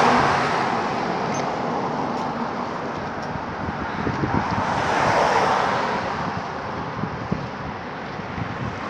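Road traffic passing close by: a large truck goes by right at the start, the loudest moment, then a steady rush of passing cars with wind on the microphone as the bicycle rolls along, swelling again about five seconds in.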